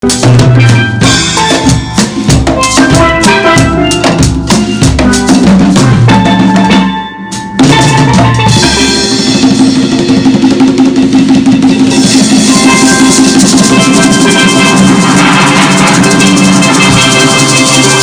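Steel pan ensemble playing with congas and drums: busy hand-drum strokes under the pans, a short break about seven seconds in, then long held pan notes, rolled, as the piece ends.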